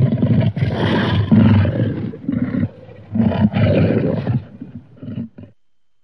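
Custom King Kong giant-ape monster roar sound effect: a run of loud, deep roars and grunts in several bursts, the last few short, cutting off about five and a half seconds in.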